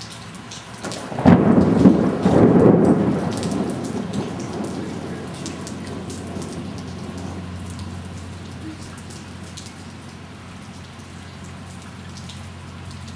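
A loud thunderclap breaks suddenly about a second in, peaks again a second later, then rumbles and fades slowly over several seconds, over steady rain.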